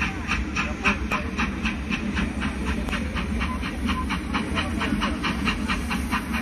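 Show soundtrack over outdoor loudspeakers: a fast, even clatter of about five beats a second with a hiss, over a steady low rumble.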